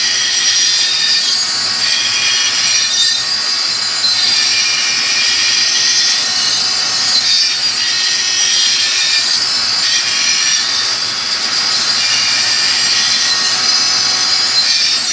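Rotary tool on a flexible shaft driving a water-cooled diamond cut-off wheel through the rim of a fused-glass drop vessel: a steady, high-pitched grinding of the wheel against the glass, taking a shallow pass.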